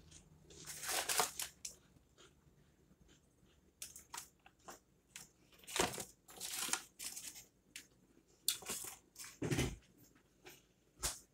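Paper takeout bag crinkling and rustling in several short bouts as it is grabbed and handled, with a low thump near the end.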